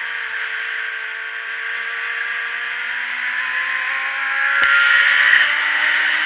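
Sport motorcycle engine pulling hard, its pitch rising steadily under a heavy rush of wind on the bike-mounted camera. A sharp knock comes near the end, and after it the engine is louder at a new pitch.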